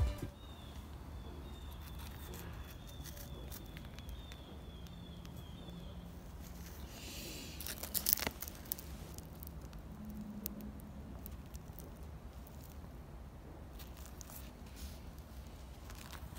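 Quiet background noise with a few faint clicks and light rustling. A short rustle and click about eight seconds in is the loudest moment.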